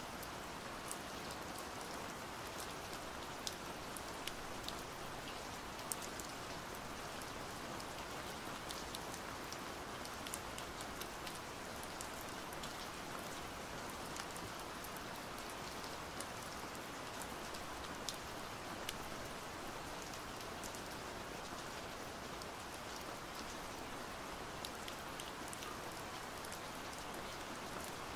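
Steady rain falling, with many small drop ticks scattered through an even hiss.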